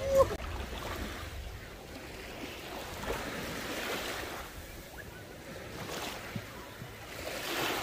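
Ocean surf washing in, a steady rush that swells and eases as waves come and go, with a brief voice-like sound at the very start.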